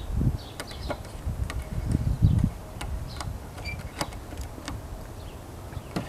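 Scattered light knocks and scrapes of a wooden birdhouse against wooden wall siding as it is fitted in place, with gusts of wind rumbling on the microphone, loudest about two seconds in.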